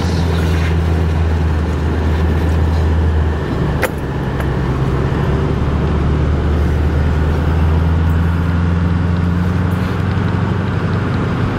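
Truck engine running, heard from inside the cab as a steady low hum. About four seconds in there is a click and the hum shifts in pitch.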